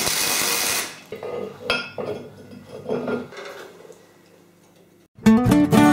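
Wire-feed welder arc crackling and hissing for the first second. Then a few metal clunks and knocks as a metal-cutting band saw is handled, and a plucked acoustic-guitar tune starts near the end.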